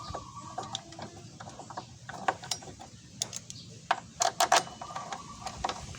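Irregular metallic clicks and clinks of hand tools working on a scooter's front brake caliper during reassembly after a brake pad change, with a quick cluster of louder clicks a little past the middle.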